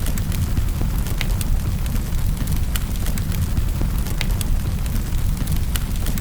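Wood fire crackling in a fireplace, with sharp pops every second or so over a steady low rumble and the hiss of rain.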